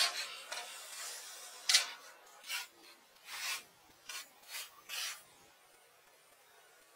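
Building materials being handled, scraping and rubbing in about seven short strokes that stop about five seconds in.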